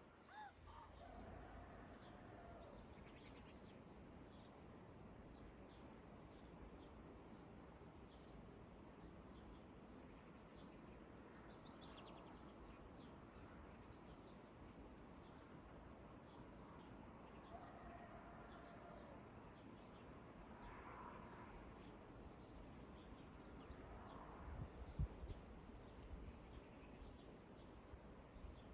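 Faint, steady high-pitched chirring of crickets, with a few faint bird calls now and then. A low thump comes near the end.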